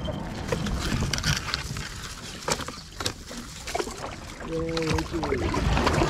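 Rustling, scraping and knocking as a kayaker squeezes his kayak under a fallen tree trunk, pushing along the bark with his hands while twigs drag over his life jacket. A short strained grunt comes about four and a half seconds in.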